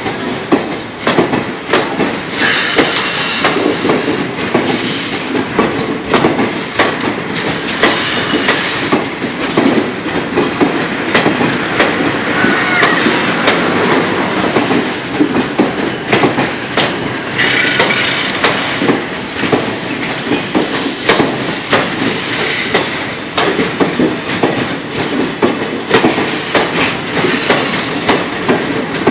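Kongu Express passenger coaches rolling past at speed, their wheels clattering steadily over the rail joints. Brief high-pitched wheel squeals come in a few times.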